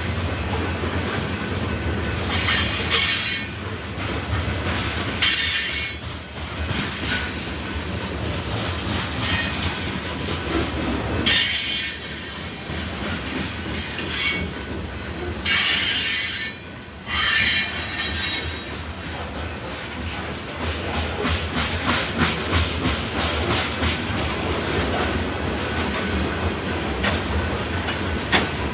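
Loaded grain train's freight cars rolling past with a steady low rumble. High wheel squeals come in several bursts through the first half, then a steady rapid clickety-clack of wheels over rail joints takes over.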